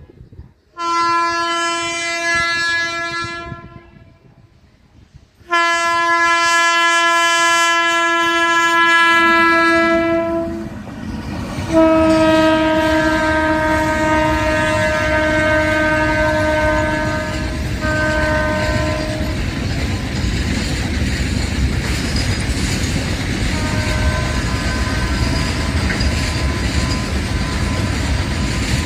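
Air horn of an Indian Railways WAG12B electric locomotive sounding several long blasts as it approaches and passes, the pitch sitting slightly lower after it goes by. Then comes the loud, steady rumble and wheel clatter of its double-stack container freight wagons rolling past, with fainter horn blasts near the end.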